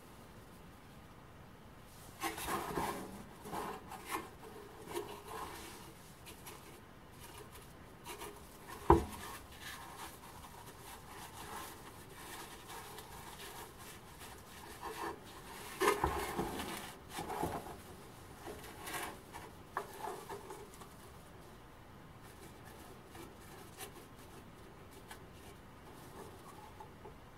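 Gloved hands handling and rubbing the inside of a bare-metal ammunition box: scattered scraping and rubbing noises in two spells, with one sharp knock about nine seconds in.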